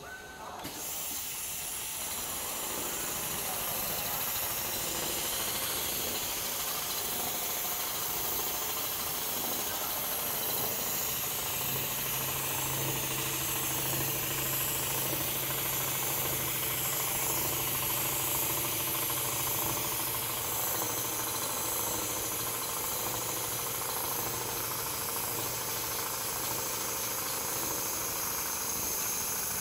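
Richpeace large-area automatic sewing machine running: the sewing head stitching a framed quilted panel as the gantry carries it around, a steady mechanical whirr with a strong hiss. A low hum joins partway through and fades out again.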